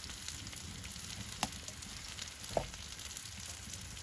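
Salted pork offal (shio horumon) sizzling in a skillet on a wood stove top: a steady frying hiss with fine crackle and two sharper pops, about a second and a half and two and a half seconds in.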